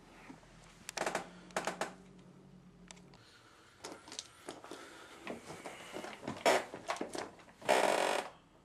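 Handling noise: a series of clicks, knocks and rustles as the camera is moved and the man settles into place, with a longer rustle near the end.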